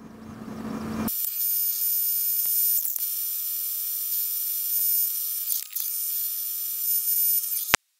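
Diode laser engraver running while it fuses a layer of sugar powder: a steady high whine over a hiss, with scattered ticks. It starts about a second in and cuts off abruptly near the end.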